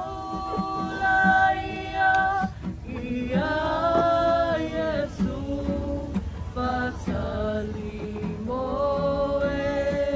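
A group of men and women singing together, holding long notes and moving between them at a slow pace.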